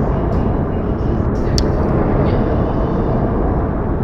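Outdoor ambience of a snowfall: a steady low rumbling noise, with a single sharp tick about one and a half seconds in.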